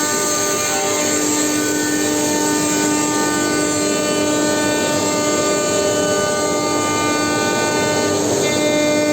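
CNC router running while milling MDF held down on a vacuum table: a steady machine whine with several held tones over a constant rush of noise from the spindle and vacuum pump. The tones shift slightly near the end.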